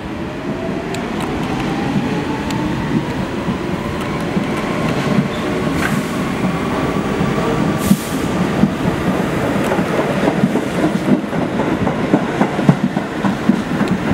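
Pullman Standard R46 subway train accelerating out of a station: a rising motor whine over a growing rumble. As it picks up speed, the wheels begin clacking over rail joints.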